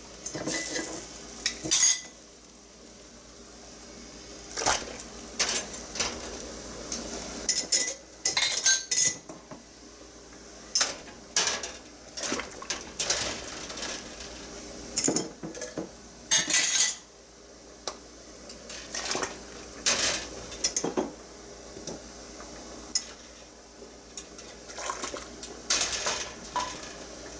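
Glass mason jars clinking and knocking against the wire jar rack and the metal canning pot as they are lowered one by one into boiling water. The clinks come irregularly, sometimes in quick clusters.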